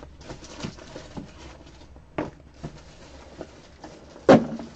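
Light handling noise from a trading card and its plastic sleeve: faint scattered rustles and small taps, with a sharper click about two seconds in and one louder knock about four seconds in.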